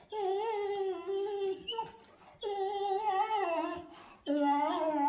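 A dog whining in three long, drawn-out moans, each sliding down in pitch, with short pauses between them.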